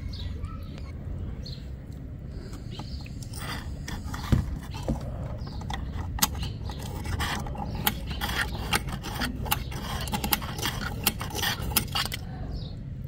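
A stiff brush scraping over the plastic vent grille of an Aiper Seagull SE robotic pool cleaner, in quick irregular clicks that come thickest in the second half. A low steady rumble runs underneath.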